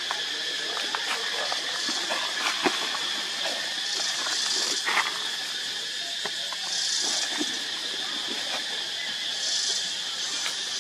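Dry leaf litter crackling and rustling under a long-tailed macaque's steps, over a steady high drone with a hiss that swells four times.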